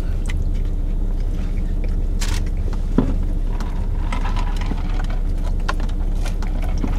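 Steady low hum inside a car cabin, with quiet chewing and biting of crispy chicken sandwiches by two people. Small scattered clicks, and one sharp click about three seconds in.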